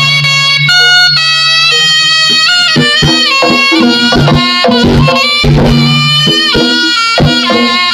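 Jaranan ensemble music: a slompret, a shrill double-reed shawm, plays a wavering melody over hand-drum strokes from the kendang and a low sustained gong-like tone.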